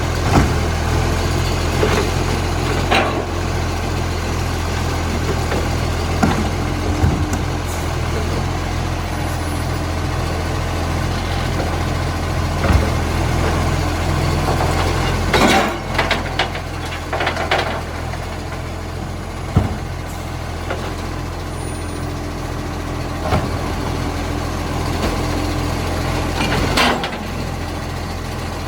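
A recycling truck's diesel engine running steadily with a low drone, broken every few seconds by sharp knocks and short hissing clatters. The truck has an exhaust leak.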